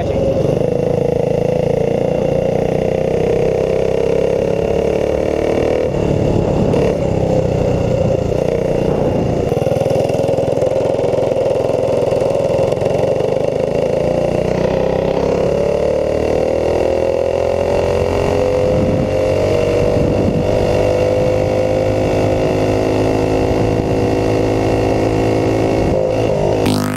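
Predator 212 single-cylinder four-stroke engine of a Doodlebug mini bike running under way as the bike is ridden, heard loud and close from on the bike. Its pitch dips and then climbs steadily for several seconds as the throttle changes.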